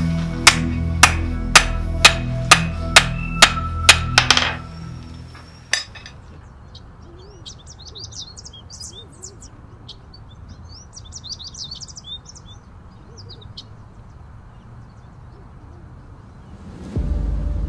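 A blacksmith's hand hammer strikes red-hot mild steel on an anvil about nine times, roughly two blows a second, as he forges out a tong blank. The blows stop after about four and a half seconds. Small birds then chirp and twitter, and music comes in near the end.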